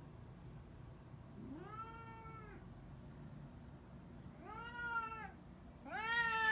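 Domestic cat giving three drawn-out, whining meows, each rising at the start and then held, the third the loudest: a cat pleading to be let outside.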